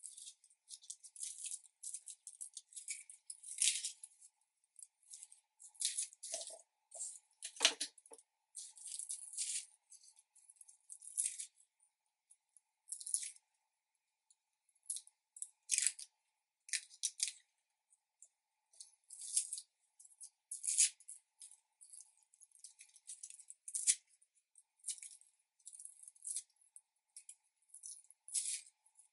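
Dry garlic skins crackling and rustling as cloves are broken from the bulb and peeled by hand, in irregular bursts of close crinkling. A couple of soft knocks come around the middle as cloves are set down on the wooden board.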